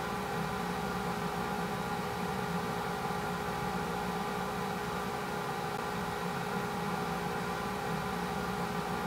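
A steady mechanical hum and whir: several fixed tones over an even hiss, unchanging throughout.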